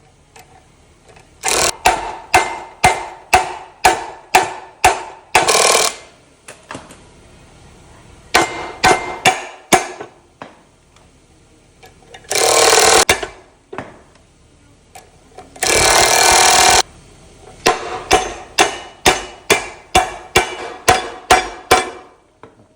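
Runs of metal hammer blows, about two to three strikes a second with a ringing clang, knocking the roller off an electric fishing-gear drum. Two harsh, noisy bursts of about a second each come between the runs.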